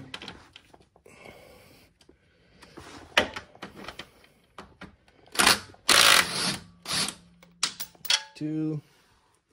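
Cordless power tool run in short bursts to back out a mower engine's motor mount bolt, with clicks and metal knocks in between; the loudest burst comes a little past halfway.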